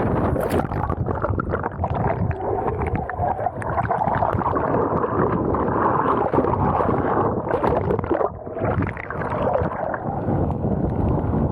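Strong wind buffeting an Insta360 One R action camera's microphone during kiteboarding, with board and water noise: a loud, dense, muffled noise that eases briefly about two-thirds of the way through.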